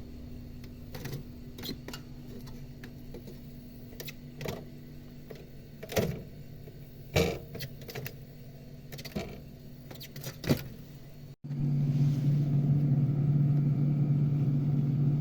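Low steady hum with scattered sharp clicks and knocks. After a brief break about eleven seconds in, a louder steady low hum follows, the refrigerator's compressor running.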